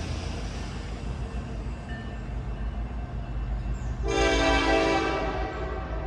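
Railroad locomotive sounding one horn blast, about a second long, about four seconds in, over the train's steady low rumble.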